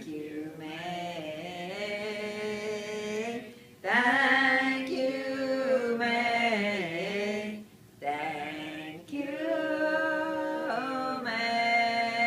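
Unaccompanied vocal chanting in long held notes, in three sustained phrases with short breaths between them.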